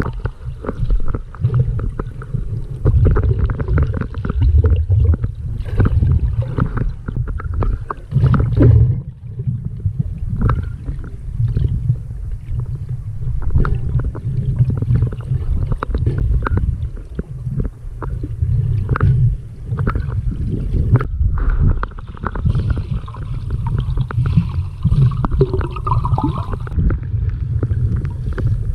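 Water sound picked up by a camera held underwater: a dense, muffled low rumble of moving water, with frequent small clicks and knocks.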